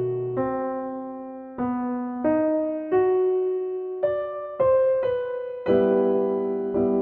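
Background piano music: a slow melody of single struck notes that fade away, ending on a chord.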